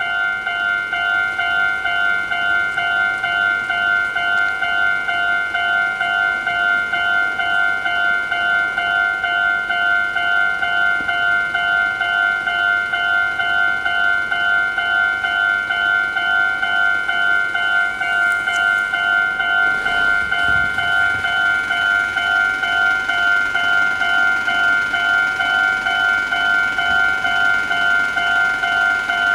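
Japanese level crossing's electronic warning bell ringing, a steady, evenly repeating ding about one and a half strokes a second, signalling that a train is approaching.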